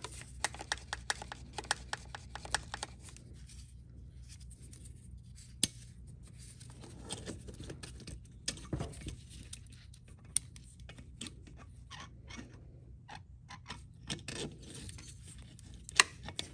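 Small clicks and scratching of hands working the throttle cable and carburetor linkage on a string trimmer's engine, over a low steady hum.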